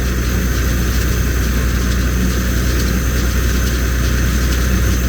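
Farm tractor engine running steadily under load with a round baler's machinery going, heard from the cab.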